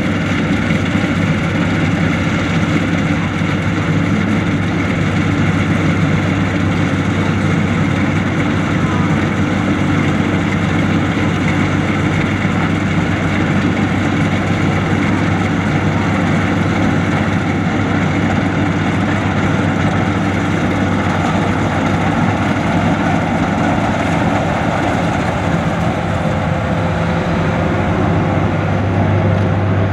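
Combine harvester engine running steadily, a constant low hum with a dense mechanical noise that neither rises nor falls.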